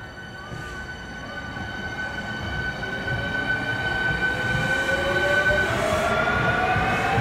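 Hankyu 1300 series electric train pulling away and accelerating, growing steadily louder. Its VVVF inverter-driven traction motors whine: a steady high tone shifts about six seconds in, while lower tones climb in pitch from about three seconds in. Wheel-on-rail rumble runs underneath.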